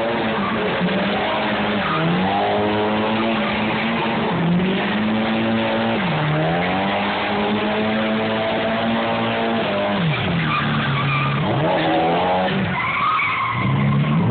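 A car doing a burnout: the engine is held at high, steady revs while the rear tyres spin and screech on the asphalt. The revs drop and climb back about six seconds in and twice more near the end.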